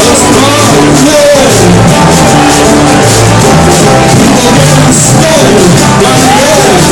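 Live punk-folk band playing loudly, with a singer's voice over a steady bass line and regular cymbal hits.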